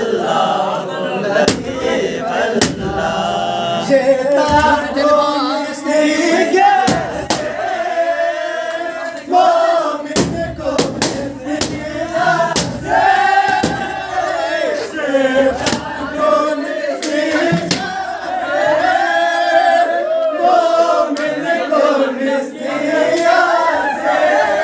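A group of young men singing and chanting together loudly in unison, with scattered sharp hits cutting through the voices.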